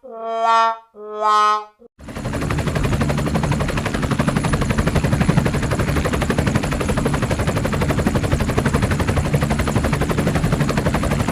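Two short horn-like toots, then, about two seconds in, a fast, steady rattle like machine-gun fire starts and keeps going.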